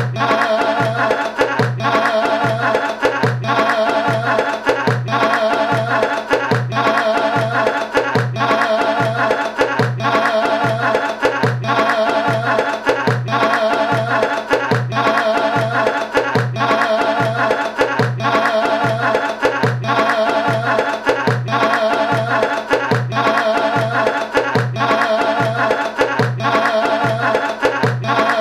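Music with a steady beat of about two low pulses a second, repeating a short wavering melodic phrase over and over.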